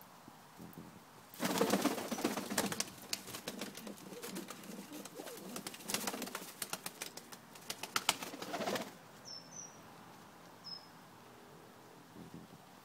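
English Carrier pigeons flapping their wings, a dense burst of fluttering and wing claps starting about a second and a half in and stopping sharply near nine seconds. A few short, high chirps follow.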